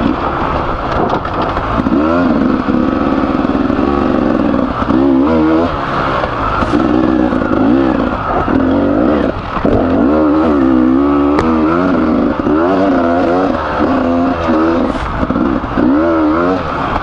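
Freshly rebuilt Beta 300RR two-stroke enduro motorcycle engine being ridden hard. The throttle opens and closes every second or so, and the engine pitch climbs and drops repeatedly, with a few sharp knocks from the bike over rough ground.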